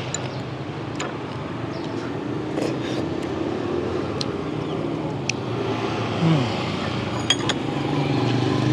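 Steady hum of street traffic, with a few sharp clinks of tableware scattered through.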